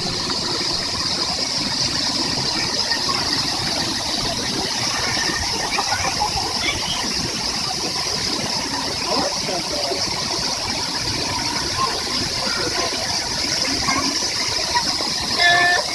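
Waterfall rushing in a steady, even roar of falling water, with a brief louder sound near the end.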